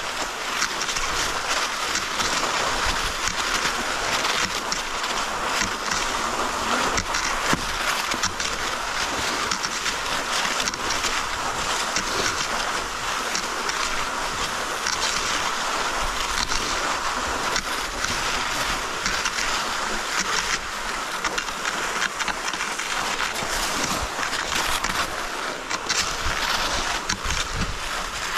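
Steady hiss of cross-country skis gliding in groomed classic tracks, mixed with wind on the microphone.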